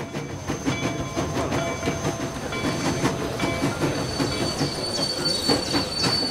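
A recorded train arriving, played from the Lincoln Station village building's sound chip: the train rumbles and its wheels clatter, with a steady high wheel squeal coming in about four seconds in.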